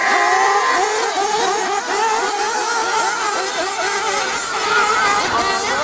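Several 1/8-scale off-road RC buggies' nitro engines revving hard together, their pitches rising and falling as the pack accelerates away from the start. A steady electronic start tone cuts off about a second in.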